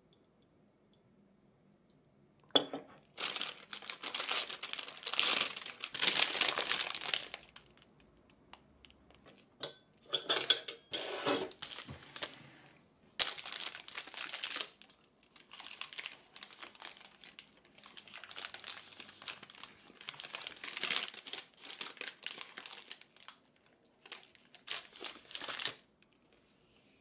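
White paper wrapping crinkling and rustling in irregular bursts as a pastry is unwrapped by hand, with a single light knock about two and a half seconds in.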